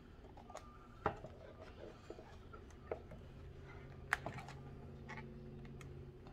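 Scattered light clicks and taps from handling a thin plastic chopping-mat sheet against a metal wire napkin holder. The sharpest clicks come about a second in and about four seconds in, and a faint steady low hum joins about three seconds in.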